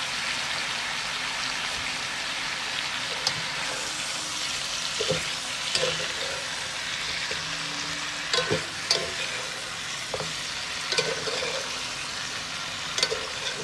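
Chicken pieces and chopped vegetables frying in a pan with soy sauce, a steady sizzle. A utensil stirring the pan gives several short knocks and scrapes along the way.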